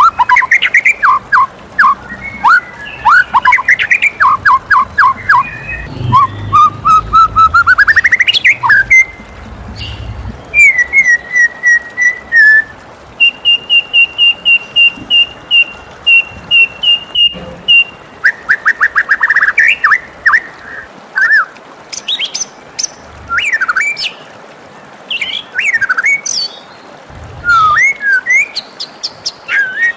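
White-rumped shama singing loud, varied whistled phrases: runs of quick sweeping notes, a rising phrase, and in the middle a long even string of rapid short notes, with short pauses between phrases later on.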